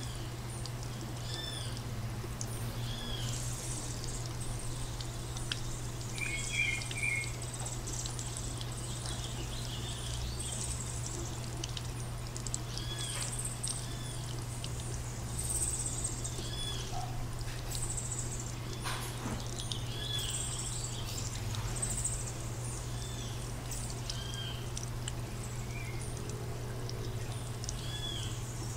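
Many birds chirping: short, arching calls repeated throughout, over a steady low hum.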